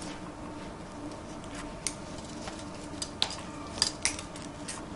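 Metal surgical instruments clinking and clicking lightly, about five times, most of them in the second half, over a steady low hum.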